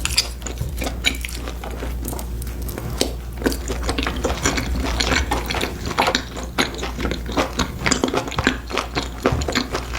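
Close-miked eating sounds: a person biting and chewing crisp food, with dense, irregular crunches and crackles throughout, over a steady low hum.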